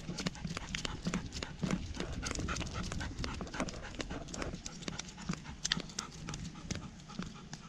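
Footsteps on tiled pavement: a person's shoes and a large Alaskan Malamute's paws and claws clicking unevenly several times a second as they walk. The dog pants heavily, winded from running a race.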